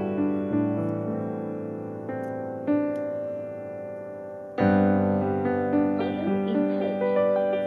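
Piano music: slow notes and chords that ring and fade, with a loud new chord about four and a half seconds in.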